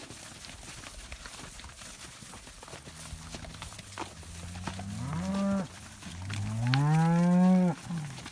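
Cattle mooing: a low call begins about three seconds in, then come two moos that rise in pitch, the second one longer and the loudest.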